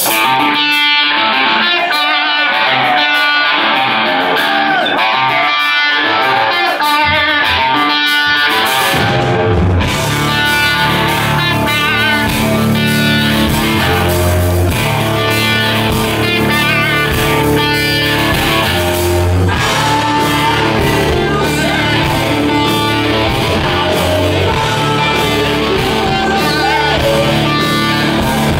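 A heavy rock band playing live. Electric guitar plays alone for about the first nine seconds, then the bass and drums come in and the full band plays.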